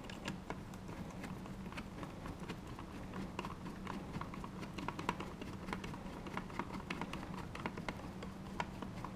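Long Phillips-head machine screws of a deadbolt being turned by hand with a screwdriver: small irregular clicks and taps of metal on metal, over a steady low hum.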